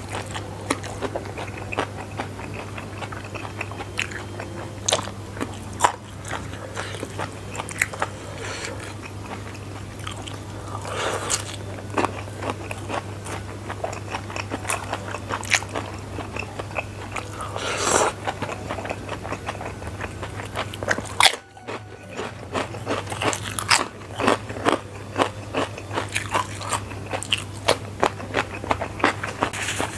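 Close-miked chewing and crunching of prawn crackers and fried flat rice noodles with green bird's-eye chilies: many sharp crunches and wet mouth sounds. A steady low hum lies underneath, and the sound drops out briefly about two-thirds of the way through.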